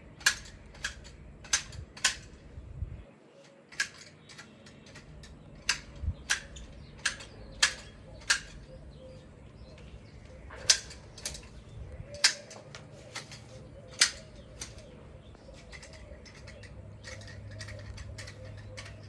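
Garden shears snipping an ornamental shrub: a run of sharp, irregular snips, roughly one or two a second.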